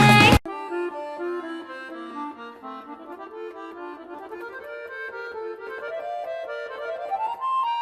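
Background music: a loud song cuts off about half a second in, then a quieter instrumental melody of held notes, reedy like an accordion, climbs slowly in pitch.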